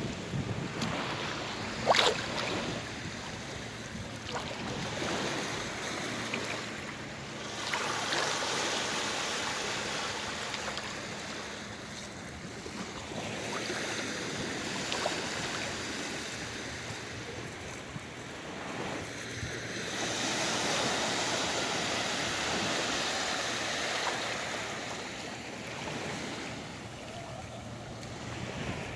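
Sea waves breaking and washing up the shore, the surf swelling and falling back every several seconds. A sharp click sounds about two seconds in.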